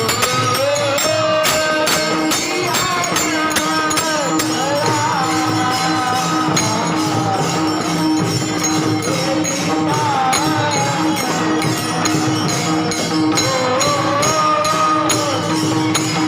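Marathi kirtan music: a voice singing a wavering devotional melody over a steady held drone note, with small hand cymbals jingling in an even rhythm.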